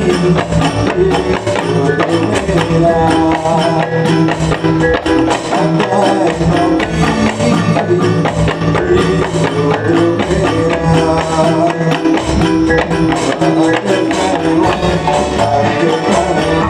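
Loud Dolalak dance music: a melody over a steady, even percussion beat.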